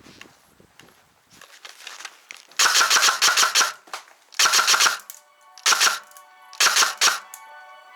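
G&G RK74E electric airsoft rifle firing four rapid full-auto bursts, the first about a second long and the third very short. Background music with steady tones comes in about halfway through.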